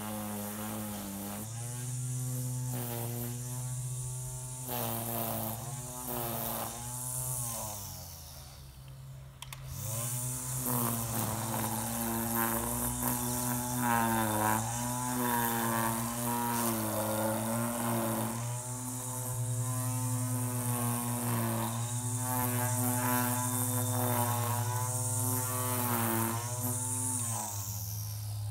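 Electric string trimmer running and cutting grass: a steady whirring hum whose pitch wavers as the line bites into the grass. It winds down about a third of the way in, spins back up, and winds down again near the end.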